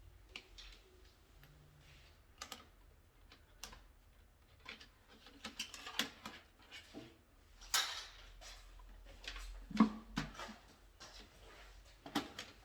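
Irregular light clicks and taps of small hand tools and wiring parts being handled, with a few louder knocks about halfway through.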